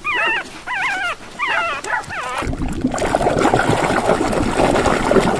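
Several short, high, wavering whining cries, like a dog whimpering, for about the first half. Then water sloshes and splashes as a toy is washed in a basin.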